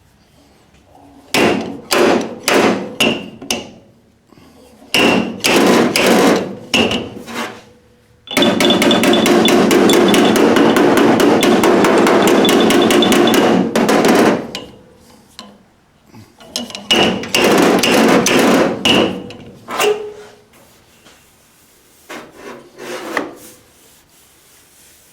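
Sharp metallic clacks in quick groups as welded studs on a dented MGA steel body panel are yanked with a dent puller to raise the low spots. In the middle a run of rapid strikes lasts about six seconds.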